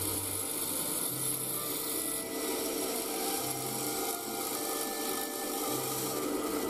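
Mortising machine running and cutting tenon holes into a spruce shoji stile: a steady machine hum with the rasp of the chisel cutting through the wood.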